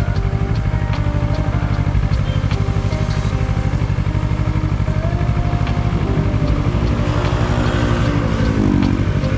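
Kawasaki ER-6n's parallel-twin engine running steadily under way, with soft ambient music playing over it.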